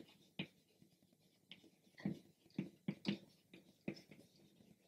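Chalk writing on a chalkboard: a faint, irregular run of short taps and scratches as letters are chalked on, a dozen or so strokes.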